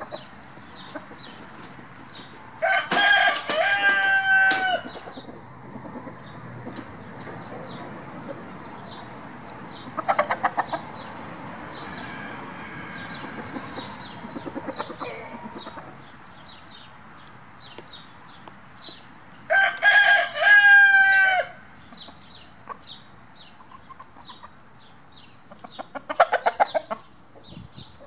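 A rooster crowing twice, each crow about two seconds long, with short bursts of rapid chicken clucking in between.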